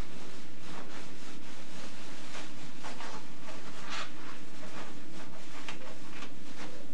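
Protective PPE coveralls rustling and crinkling as they are pulled on over the legs, in a string of irregular scratchy swishes, the loudest about four seconds in.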